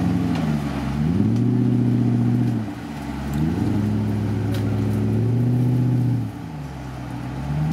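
Engine of a tube-frame off-road trial 4x4 special revving hard under load as it climbs a steep muddy slope: two long bursts held high for a couple of seconds each, falling back between them, with a third rise starting near the end.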